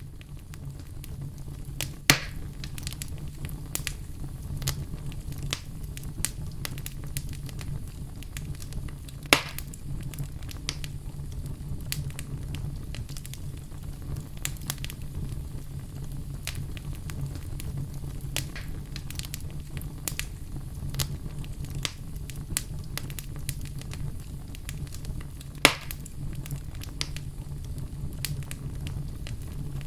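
Wood fire in a fireplace crackling steadily over a low rumble of burning flames, with three louder sharp pops spread through, the first a couple of seconds in.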